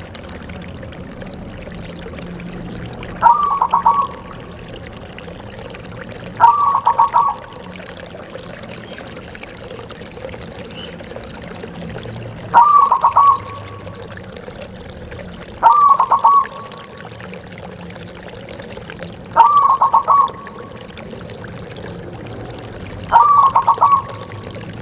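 Zebra dove (perkutut) cooing: six short phrases of quick stuttering notes, one every three to four seconds, over a steady background hiss.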